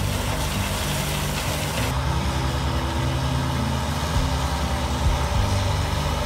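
Heavy farm machinery running: a sugarcane harvester working beside a tractor pulling a cane wagon, with a steady engine rumble and a higher hiss that drops away about two seconds in. Background music with changing low notes plays over it.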